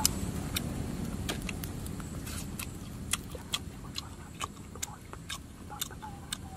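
Small wood campfire crackling, with irregular sharp pops and snaps, two or three a second, over a low steady rumble.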